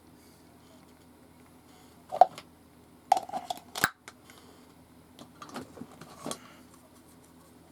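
Plastic clicks and clacks from an original Rubik's Cube being handled and turned, in three short clusters: a sharp click about two seconds in, a run of clacks around three to four seconds, and softer rattling near six seconds.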